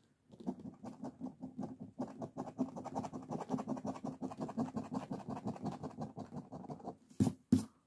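Scratch-off lottery ticket being scratched with a coin, a fast, even run of short rasping strokes, many a second, as the coating is rubbed off the numbers. Two sharp, louder knocks near the end.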